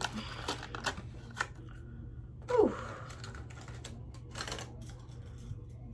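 Light clicks and taps of small plastic fingerboard parts and packaging being handled, irregular and spaced out, with a short falling squeak about two and a half seconds in.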